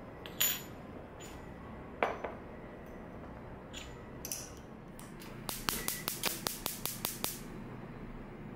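Glass jars clinking a few times as they are handled on the counter, then a gas hob's igniter clicking rapidly, about six clicks a second for nearly two seconds, as the burner is lit under a kettle.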